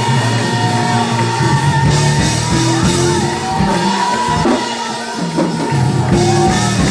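Live church praise-and-worship music: held chords ring steadily under voices singing and shouting over them, echoing in a large hall.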